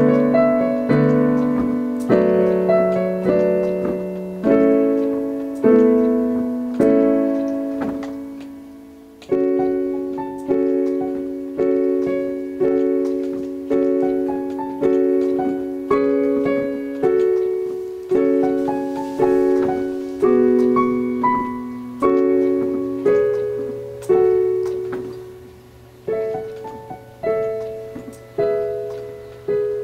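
A child playing a slow piece on the piano: notes and chords struck about once a second, each left to fade, with a short break about nine seconds in and a low bass note sounding under the second half.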